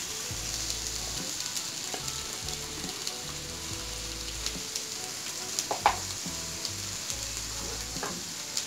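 Chopped onions and green chillies sizzling steadily as they fry in oil in a non-stick pan, with a short sharp click a little after the middle.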